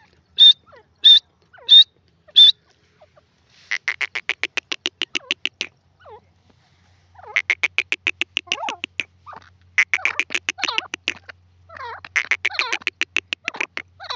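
Grey francolin calling: four loud single notes, evenly spaced, about one and a half a second. Then several long runs of fast, short repeated notes, about eight a second, each run lasting one to two seconds.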